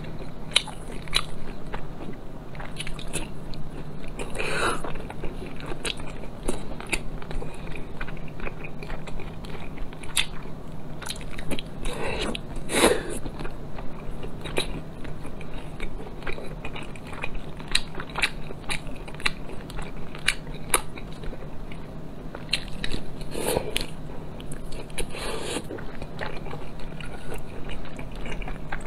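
Close-miked chewing and mouth noises of a person eating braised pork belly: many short smacking clicks, with now and then a louder, longer mouth noise.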